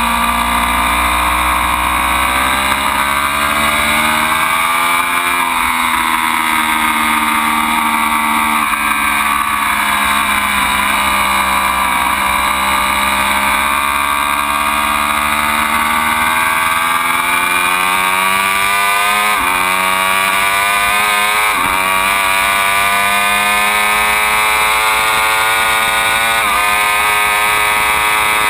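Ducati Panigale V4's 90-degree V4 engine running hard on track, its pitch rising and falling with the throttle. After a long climb in revs it drops sharply three times in the last third as it shifts up through the gears.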